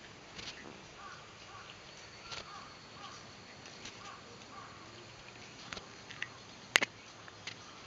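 Light rain falling, a steady soft hiss with scattered drops tapping, and one much louder sharp tap about seven seconds in.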